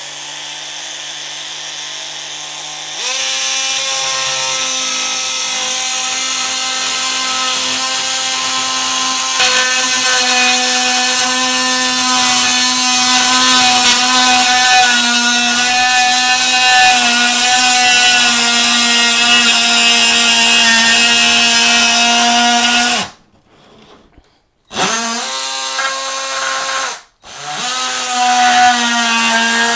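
Ryobi oscillating multi-tool cutting through a surge protector's plastic housing: a steady, high-pitched buzz whose pitch wavers slightly as the blade bites. It steps up louder about three seconds in, stops about 23 seconds in, starts again, and cuts out once more for a moment near the end.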